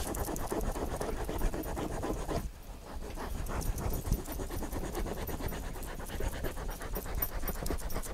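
A cloth rubbing quickly back and forth over an upholstered boat seat, a brisk, even run of scrubbing strokes with a brief pause about two and a half seconds in.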